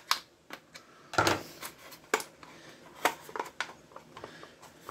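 The hard plastic housing of a toy being pried and pulled apart by hand, its snap-fit clips giving way in a series of sharp, irregular clicks and cracks. A loud crack comes right at the start, with a cluster about a second in.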